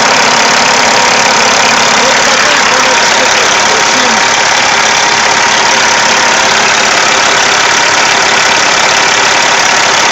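Caterpillar C15 diesel engine idling warm, a loud, steady run with a constant whine.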